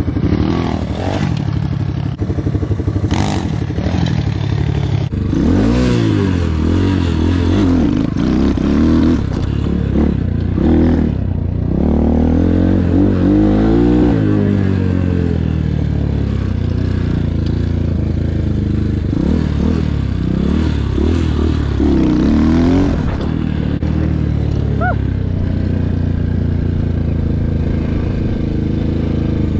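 Engine of a cheap 250cc Apollo dirt bike being ridden, its revs rising and falling over and over as the throttle is worked, then holding a steadier note for the last several seconds.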